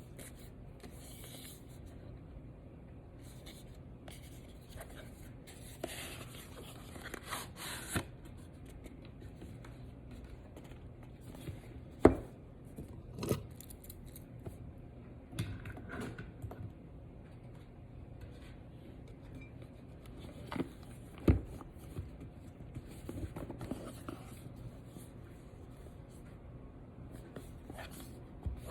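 Hands handling and opening a phone's retail box and packaging: rustling and tearing of paper and plastic with scraping. Several sharp clicks and knocks are scattered through it, two of them louder than the rest.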